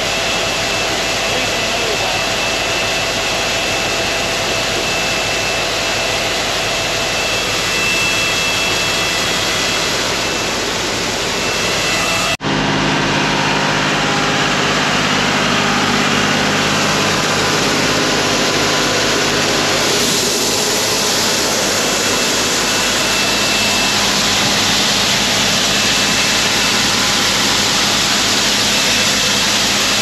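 Small grain auger running steadily as shelled corn pours from a trailer into its hopper. After a cut about twelve seconds in, a John Deere tractor engine runs steadily alongside the pouring corn.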